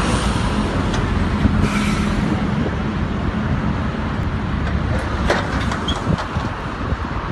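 Steady low rumble of heavy diesel truck engines running, mixed with motorway traffic noise, with a steady hum that fades after about three seconds. A few sharp knocks come about five seconds in.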